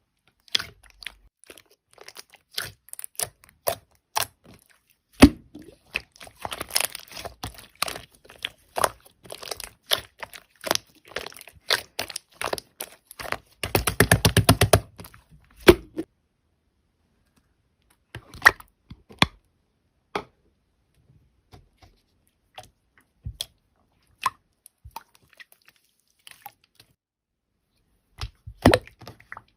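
Slime being squished and pressed by hand, making sticky clicks, crackles and pops, with a quick run of crackling about halfway through and only scattered pops after that.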